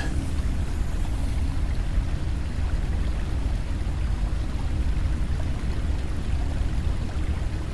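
Steady low rumble with a fainter watery hiss: running-water ambience of a sewer tunnel, even and unchanging.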